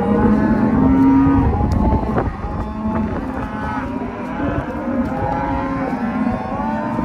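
A herd of beef cattle mooing and bawling, many overlapping calls at once, over a low rumble of wind on the microphone.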